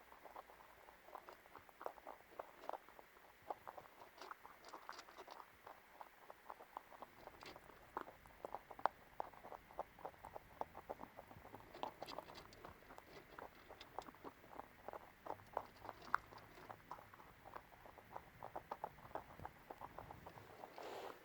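A rabbit chewing food: a fast run of small, crisp crunches, several a second, with short pauses now and then.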